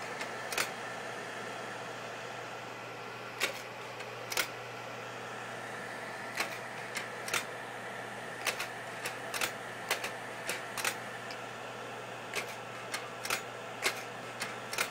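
Kodak Carousel slide projector running, its cooling fan giving a steady hum, while the slide-change mechanism clicks again and again as slides are stepped through from the remote, the clicks coming at uneven intervals and sometimes in quick pairs.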